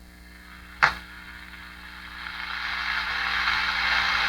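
A sharp click about a second in, then static hiss from a 1940 Firestone Air Chief tube radio's speaker swelling steadily louder over a faint mains hum, just before a station comes through.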